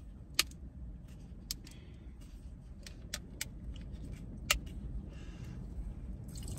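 A handful of sharp clicks and ticks from a plastic soda bottle being handled and its screw cap twisted, over a steady low rumble.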